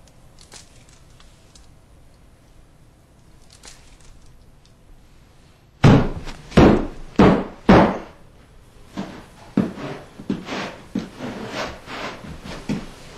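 Four heavy thuds about half a second apart, then a run of lighter, uneven knocks.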